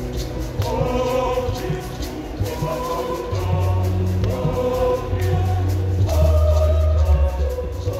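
Mixed church choir singing a Luganda hymn in harmony, with a deep bass that grows much stronger a few seconds in.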